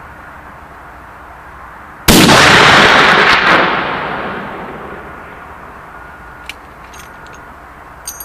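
A Grizzly LAR-50 .50 BMG rifle fires a single shot about two seconds in, a very loud blast followed by a long echo that fades over about two seconds. A few faint clicks follow near the end.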